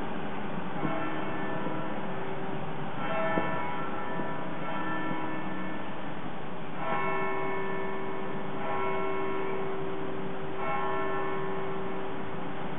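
Church bells ringing, a new stroke every second or two, each left to ring on.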